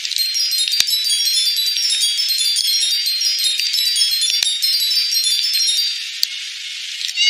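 Twinkling wind-chime sound effect: many short, high, bell-like notes scattered over a soft hiss, with a few faint clicks. It thins out near the end.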